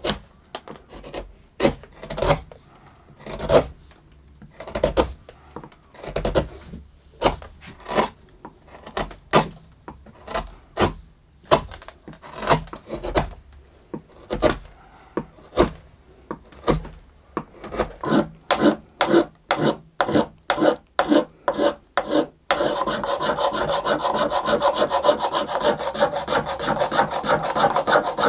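Wood being pared with a hand gouge in short separate cuts, coming faster midway. For the last several seconds a small plane shaves the wood in quick, unbroken strokes.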